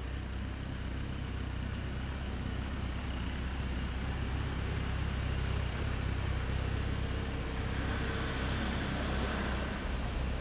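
Steady low rumble of vehicles, with a broad hiss that grows louder in the second half.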